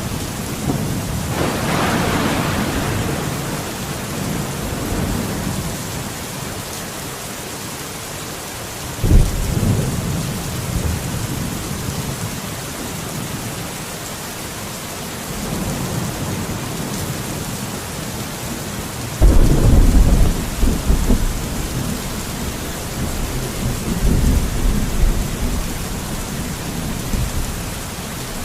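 Steady heavy rain hissing, with rolling thunder. Sharp thunderclaps break in about nine seconds in and again about two-thirds of the way through, each rumbling on for several seconds.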